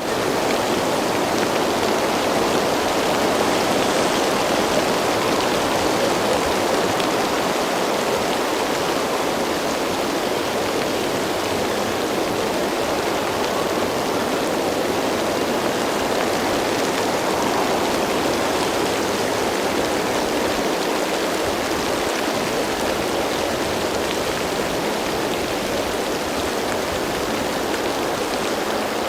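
Heavy rain falling steadily: a dense, even hiss that holds without breaks.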